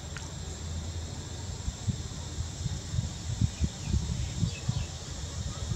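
Steady high-pitched drone of insects, with a run of irregular low thumps and rumbles through the middle of the stretch.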